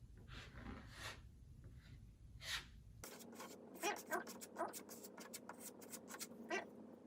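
Putty knife spreading and scraping joint compound over a drywall patch and mesh tape: a series of short scraping strokes, a few soft ones at first, then a quicker run of sharper strokes from about three seconds in, some with a faint squeak of the blade.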